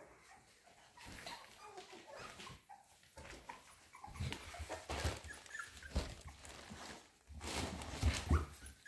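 American Staffordshire Terrier puppies whimpering and squeaking, with loud rustling and bumping about four seconds in and again near the end.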